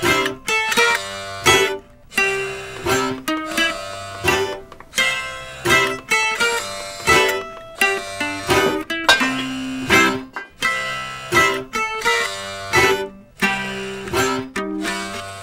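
Background music: an acoustic plucked-string tune of quickly picked notes, each struck sharply and dying away.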